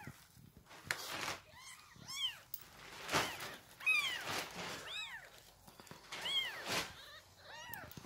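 Newborn kittens mewing over and over: about a dozen short, high-pitched mews, each rising then falling in pitch, with brief rustling noises between them.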